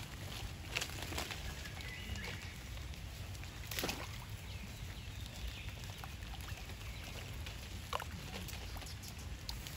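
Baby monkeys splashing and wading in a shallow muddy puddle, water sloshing, with a few short high chirps over a steady wet outdoor background.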